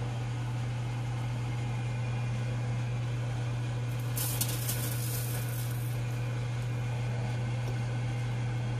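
Steady low hum from a running kitchen appliance, with faint scraping and clicks of a fork on the dishes for a couple of seconds starting about four seconds in.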